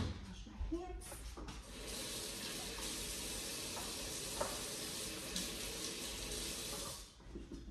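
Kitchen tap running water into a sink as a steady hiss for about six seconds, then shut off abruptly; a knock at the very start.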